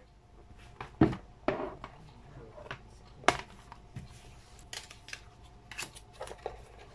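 A plastic cutting mat and paper cards being set down and handled on a desk: a few sharp knocks and taps with light rustling between. The loudest knocks come about a second in and just after three seconds in, with quicker, lighter taps near the end.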